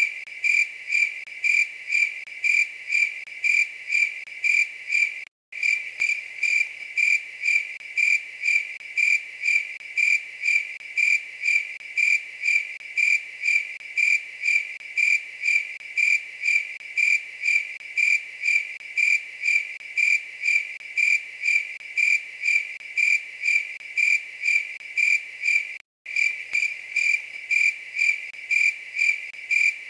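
A night-singing insect chirping in a quick, even rhythm of a few chirps a second, each chirp one clear, high, cricket-like note. The song cuts out to silence for a split second twice, about five seconds in and near the end.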